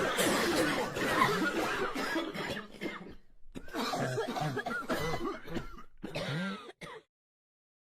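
A crowd of people coughing at once, thinning out to scattered separate coughs about three seconds in, then cutting off abruptly about seven seconds in.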